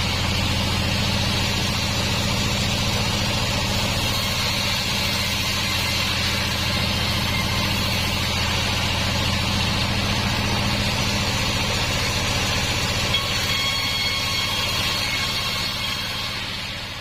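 Sawmill band saw machinery running steadily with a low, even engine-like hum and a hiss above it, fading out near the end.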